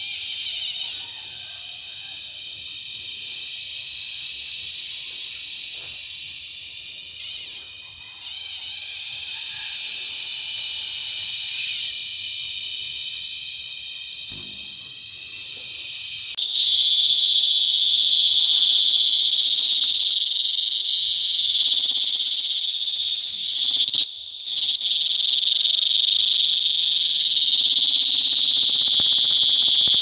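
Cicadas giving their loud, steady, high-pitched buzzing mating call. About halfway through the sound changes to a louder, shriller drone held on one pitch, which breaks off for an instant a few seconds later and then resumes.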